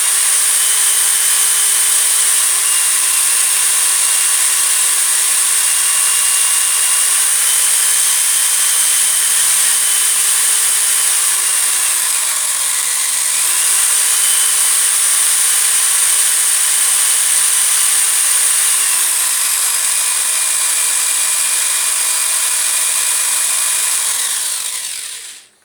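Cordless screwdriver-drill spinning an electric sander's armature while cloth-backed sandpaper is held against its commutator, cleaning burnt residue off it: a steady motor whine over a loud hissing scrape. The pitch shifts slightly a few times and dips about halfway through, and the sound stops near the end.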